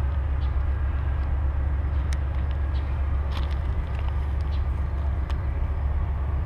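Steady low rumble of two Amtrak P42DC diesel locomotives approaching from a distance, with a few faint clicks.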